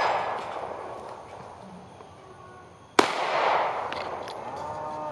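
Smith & Wesson Performance Center M&P Shield 9mm pistol with a ported barrel: the echo of a previous shot fades out, then a single loud shot about three seconds in, its report echoing and dying away over the next two seconds.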